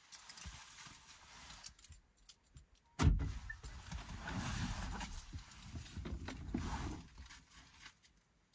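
A person shifting and climbing out of a car's cargo area: a sudden thump about three seconds in, then about four seconds of rustling and bumping against the floor and trim, stopping near the end.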